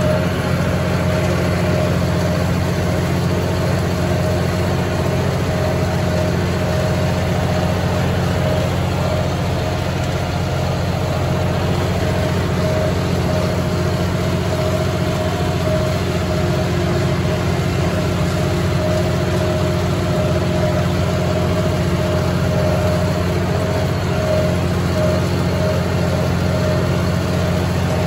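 John Deere 5045E tractor's three-cylinder diesel running steadily under load, driving a John Deere MX8 rotary cutter through the PTO while bush hogging, with a steady high whine above the engine note.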